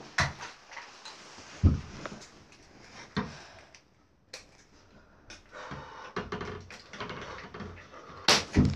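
Scoped hunting rifle being handled and shouldered in a small wooden hunting blind: a string of separate knocks and clicks, a few seconds apart, with a sharp one near the end.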